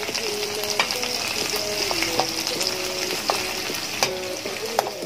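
Dried labahita fish sizzling as it fries in oil in a pan, with about five sharp clicks of metal utensils striking the pan as the pieces are turned.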